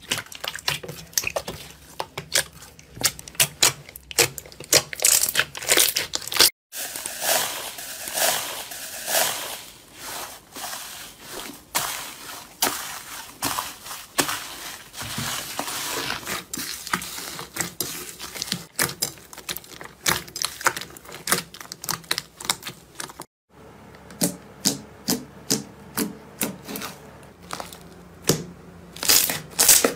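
Slime being squeezed, pressed and poked by hand: a dense run of sticky clicks, pops and crackles. The sound breaks off twice for a moment.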